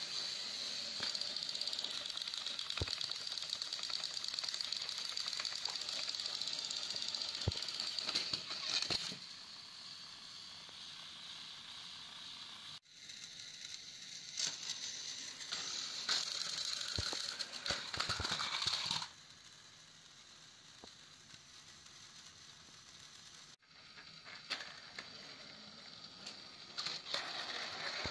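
Battery-powered toy trains running on plastic track: the small electric motors whir with a fast, steady clicking rattle of gears and wheels that grows louder and fainter as the engines move along. A few sharp clicks stand out.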